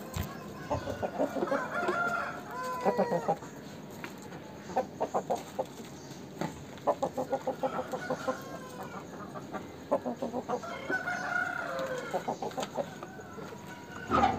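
Aseel rooster clucking in quick runs of short notes, about six a second. Two longer calls that bend in pitch come about a second in and again near the end.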